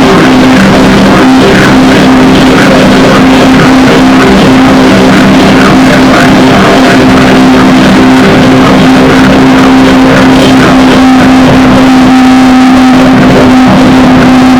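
Loud, heavily distorted drone-noise music: a dense wall of distorted noise with a steady low drone held throughout.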